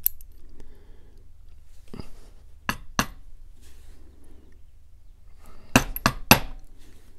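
Sharp metallic clinks of tweezers and small brass lock parts knocking against the lock cylinder and a wooden pin tray while a lock cylinder is taken apart. There are two clinks about three seconds in and three more in quick succession about six seconds in.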